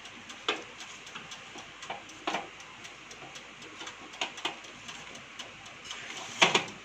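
Toaster oven's timer ticking steadily, with a few louder knocks and clatters as the steak tray is handled; the loudest knock comes near the end.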